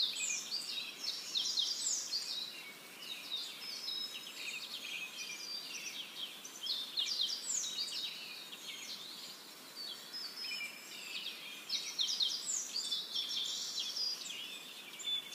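A chorus of small birds chirping and singing, many quick calls overlapping, with a short lull about two-thirds of the way through before the chirping picks up again.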